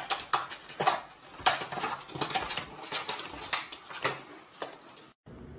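Plastic cat flap clattering and banging over and over as a heavy cat struggles through it, with strong knocks about twice a second and smaller rattles in between. The noise cuts off suddenly near the end.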